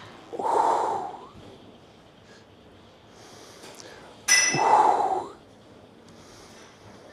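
A man breathing out forcefully on each rep of a cable exercise, twice about four seconds apart. At the second breath the cable machine's metal weight stack gives a ringing clink.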